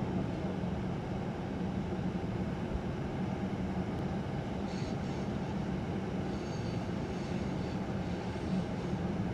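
Steady low background rumble of a railway station and the surrounding city, even in level, with a few faint, brief high tones near the middle.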